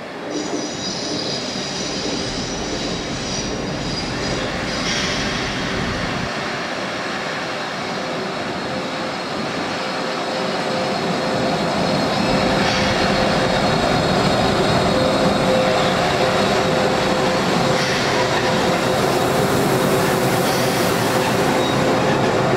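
ÖBB class 1144 electric locomotive rolling slowly into the platform, with its running gear rumbling and a steady whining tone. It grows louder as it draws up close.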